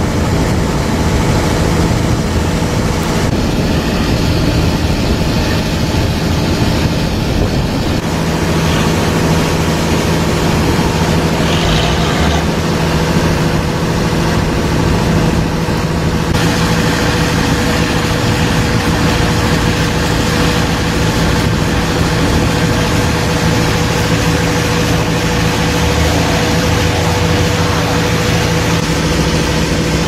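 Boat engine running at a steady speed: a low, even drone with a few held tones in it.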